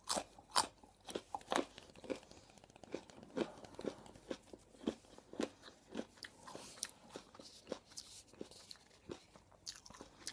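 Raw carrot being bitten and chewed close to a foam-covered microphone: crisp crunches about twice a second, loudest at the start.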